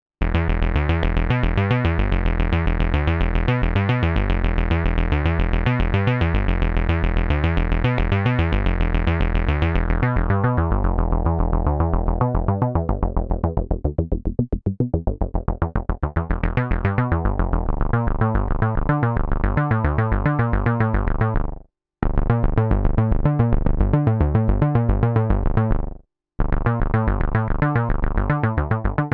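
Moog Mother-32 analog synthesizer playing a fast, repeating acid bass line. Its tone darkens about ten seconds in and brightens again a few seconds later. The line stops briefly twice near the end.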